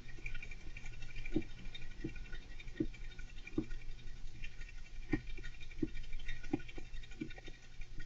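Golden hamster scratching and rustling in its enclosure, with soft regular knocks about every 0.7 seconds over a low steady hum.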